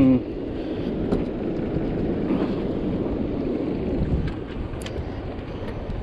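Wind buffeting the microphone aboard a small fishing boat, over a steady low rumble from the boat and the sea. A brief vocal sound comes right at the start, and a few light clicks follow.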